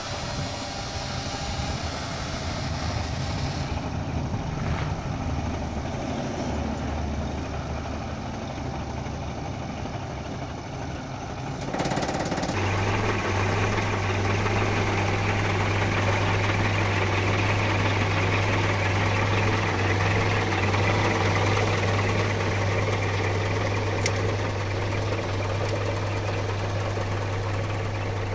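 Scania R 420 truck's diesel engine idling steadily. It becomes louder and steadier about halfway through.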